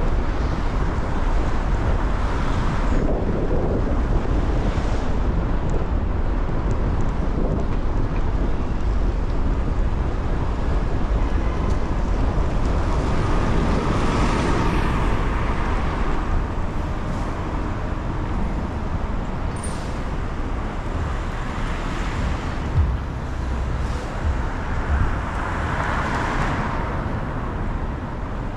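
City traffic and road noise on wet streets: a steady low rumble with a hiss of tyres and rain, swelling twice as vehicles pass, about halfway through and near the end.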